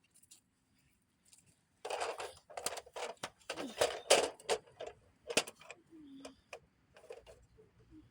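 Handling noise from small hard objects: a quick run of clicks and rattles starting about two seconds in, then scattered single clicks.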